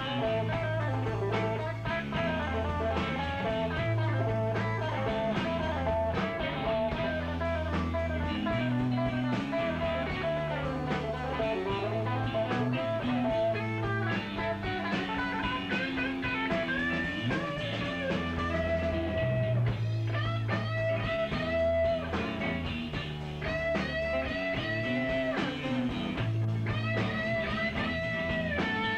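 Live blues-rock band playing: lead electric guitar over bass guitar and drums, with the lead line bending notes more in the second half.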